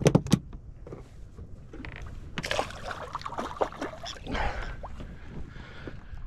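Water splashing and sloshing around a small boat, busiest from about two and a half to five seconds in, over a steady low rumble, with a few sharp knocks at the very start.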